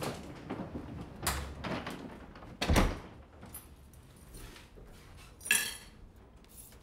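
Household movement sounds: a few light knocks and a heavy thud about three seconds in, then a short, bright jingle of keys about two-thirds through.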